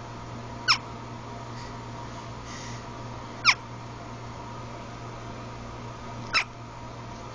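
Hiccups: three short, high squeaks, each falling sharply in pitch, about three seconds apart.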